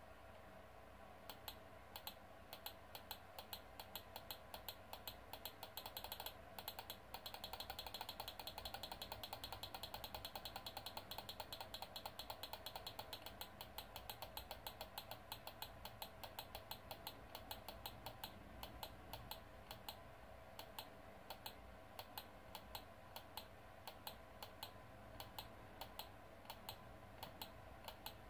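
Runs of quick button clicks, a few a second and fastest between about 7 and 14 seconds in, as CCTV playback is stepped forward single frame by single frame. A faint steady electrical hum lies underneath.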